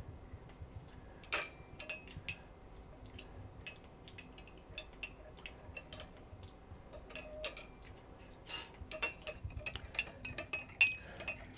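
Teaspoon stirring coffee in a porcelain espresso cup: scattered light clinks of metal on china, with a few louder clinks about a second and a half in and in the last few seconds.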